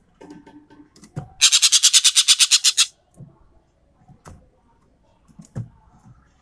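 Ekek keling bird giving a loud, harsh rattling call, a fast even series of about ten pulses a second lasting about a second and a half, with a few soft clicks and knocks before and after.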